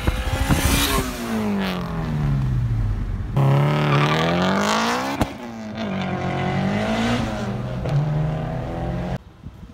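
Turbocharged Honda Civic hatchback's four-cylinder engine revving hard as the car accelerates away, its pitch climbing and dropping through the gears, with a single sharp crack about five seconds in.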